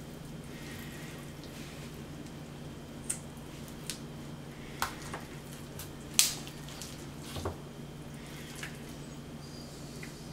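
Scattered short clicks and small wet sounds as a trussing needle threaded with kitchen twine is worked through a whole stuffed snapper on a wooden cutting board, over a steady low hum; the sharpest click comes about six seconds in.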